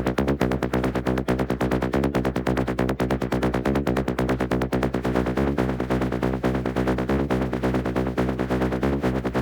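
Instrumental electronic dance music: a fast, even synth pulse over steady sustained bass notes, without vocals.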